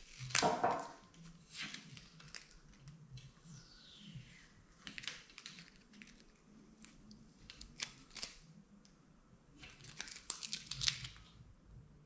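Thin masking-vinyl stencil being peeled by hand off a freshly lacquered bicycle frame: faint, scattered crackling and tearing as the slightly sticky vinyl lifts away from the wet gold size, loudest about half a second in and in a burst near the end.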